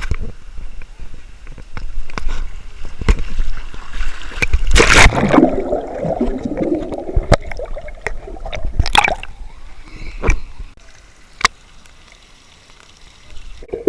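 Water sloshing and gurgling around a GoPro in a hot-spring pool, with scattered knocks and two big splashes, the loudest about five seconds in and another about nine seconds in; quieter near the end.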